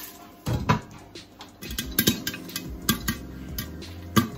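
Popcorn kernels popping in a lidded pot of hot oil: a dozen or so sharp, irregular pops.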